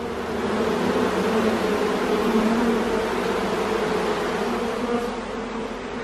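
Steady buzzing of a mass of honey bees from a feral colony nesting in an old dishwasher, stirred up as their comb is cut out.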